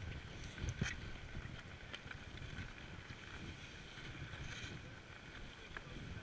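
Snowboard sliding slowly over packed snow, with wind rumbling on the action camera's microphone. There is a short knock just under a second in.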